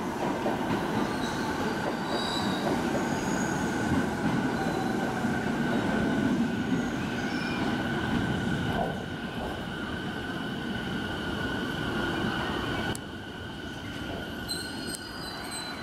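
JR 209-series electric commuter train pulling into a station platform and slowing to a stop. The wheels rumble on the rails under a steady high squeal, and the rumble drops off about 13 seconds in.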